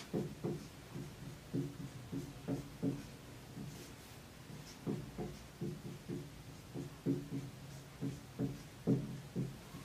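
Marker pen writing on a whiteboard: a run of short, uneven strokes, two or three a second.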